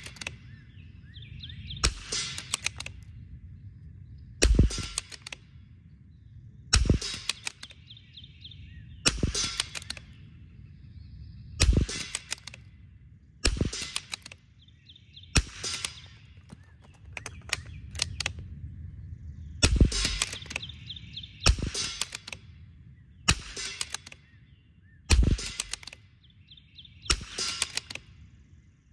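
Custom Vudoo bolt-action rimfire rifle firing a slow, steady string of single shots, about a dozen in all, one every two seconds or so.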